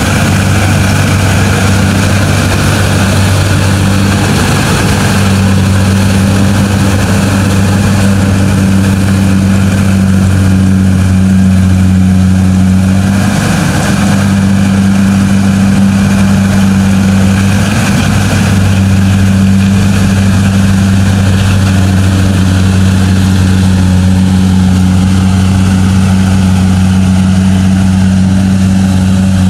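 Kubota DC-70G Plus combine harvester's diesel engine running steadily at constant speed while harvesting rice, a loud, even drone.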